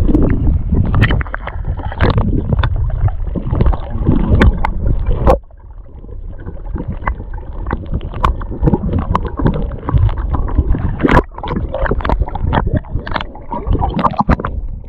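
Reservoir water splashing and sloshing around a camera held at the surface beside a pike being released, with many sharp knocks of handling. About five seconds in the sound drops abruptly as the camera goes under, leaving quieter water noise and scattered knocks.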